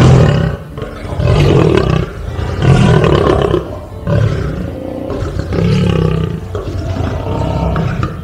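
Lion roaring: a series of about six deep, rough roars, each about a second and a half after the last.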